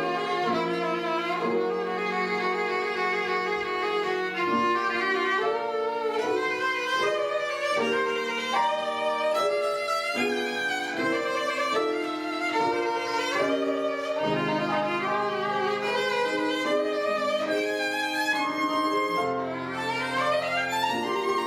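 Solo violin playing a classical piece, a run of quickly changing bowed notes over lower held tones.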